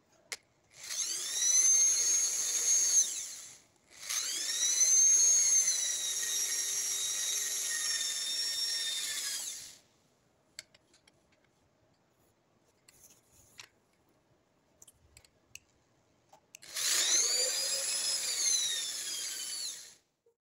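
Handheld electric drill running three times, spinning a wooden handle clamped in its chuck. Each run whines up to speed and winds down when released. The first two runs are close together; a quiet gap with a few light clicks comes before the third, near the end.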